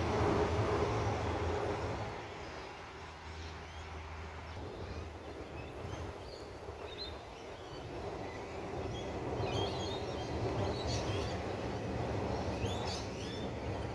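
Adelaide Metro A-City 4000 Class electric trains running over a concrete rail bridge. One train's rumble fades away in the first two seconds, then another rolls across, growing louder in the second half. Birds chirp through the quieter middle and on to near the end.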